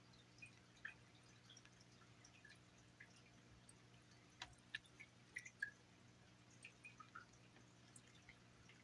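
Kitten crunching dry kibble: faint, irregular small crunches and clicks, thickest about halfway through.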